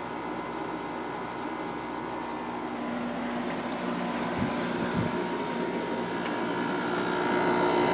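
Window air conditioner (2001 White Westinghouse WCI 5,000 BTU, LG compressor, GE fan motor) running: a steady hum with several fixed tones under fan air noise. It grows gradually louder, with two soft low thumps about halfway through. The compressor sounds healthy.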